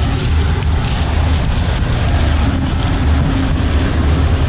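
Wind buffeting the microphone over the steady running of a grain dryer's fan and gas burner: a loud, continuous rumbling rush.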